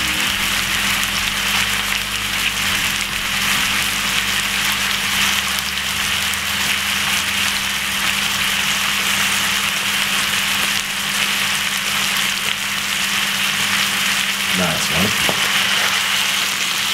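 Hot oil sizzling steadily under a seasoned lamb joint searing in a frying pan, with a steady low hum beneath.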